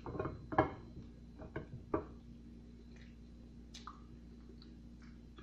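Mouth-only eating of a banana: biting, tearing the peel and chewing. Several short sounds come in the first two seconds, the loudest about half a second in and at two seconds, then only a few faint clicks.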